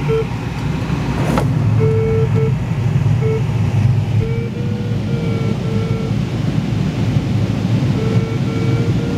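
Steady rushing airflow noise in a glider cockpit. Over it, the variometer's audio tone sounds in runs of short beeps, which signal that the glider is climbing in lift. The beeping pauses for the first couple of seconds and again for a couple of seconds near the end, and there is one click about a second and a half in.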